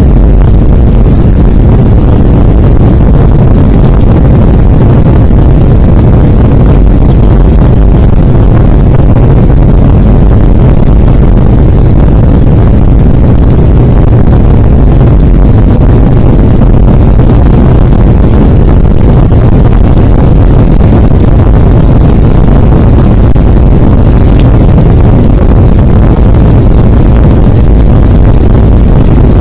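Loud, steady rumble of a jet airliner's engines and airframe heard from inside the passenger cabin, mostly low and unchanging throughout.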